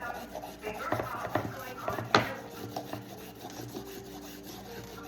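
Carrot being peeled with a vegetable peeler: repeated rasping scrapes, with a sharp knock about two seconds in.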